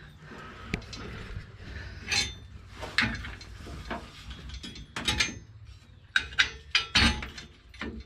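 Steel parts of a floor-style ATV/lawnmower jack clinking and knocking as pieces are fitted and slid into place: irregular sharp clicks and clanks, busiest a little past the middle, over a low steady hum.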